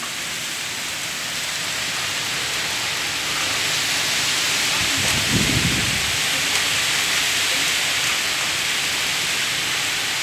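Torrential rain of a thunderstorm downburst, a steady heavy hiss that swells over the first couple of seconds as the balcony door opens onto it. About five seconds in, a brief low rumble.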